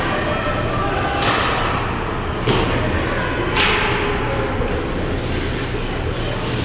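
Ice hockey play echoing through an ice rink: a steady wash of arena noise with three sharp scraping swishes about a second apart, typical of skate blades cutting the ice.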